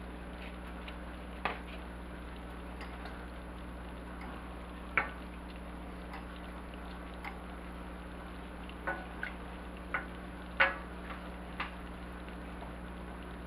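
Wooden spoon stirring melting cheese and broth in a stainless steel saucepan, the spoon now and then knocking sharply against the pan, about eight times at uneven intervals with the loudest a little past ten seconds in. A steady low hum runs underneath.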